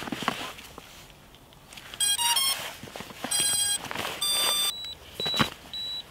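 Racing quadcopter's ESCs beeping through the motors as the battery is plugged in: a quick run of stepped electronic tones, two longer tones, then three short high beeps.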